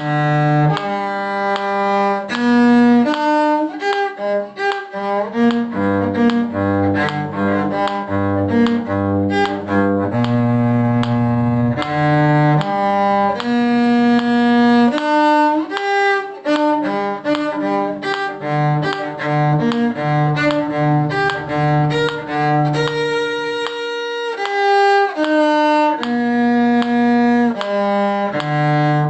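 Bowed string instruments playing a brisk beginner ensemble tune at a faster tempo, a steady run of short and held notes with a low bass line under a higher melody.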